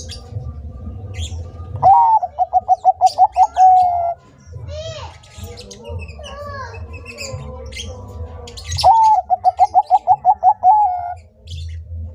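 Zebra dove (perkutut, Bangkok type) singing two phrases of rapid pulsed cooing, each lasting about two seconds and opening with a higher note. Other small birds chirp in between, over a low rumble.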